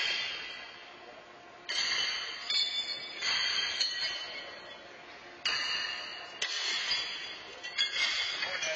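Thrown steel horseshoes striking the metal stakes and each other in the pits, several ringing metallic clanks a second or two apart, each ringing on and fading over a second or more.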